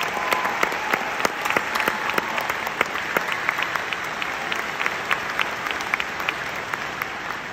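Audience applauding, with many single sharp claps standing out from the general clapping; the applause slowly fades.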